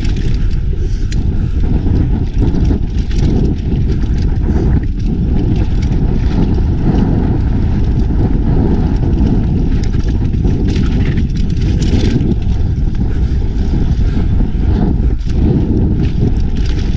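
Wind rushing over the camera microphone together with the rumble of mountain bike tyres rolling fast down a dirt trail, with a few brief clattering knocks from the bike about two-thirds of the way in.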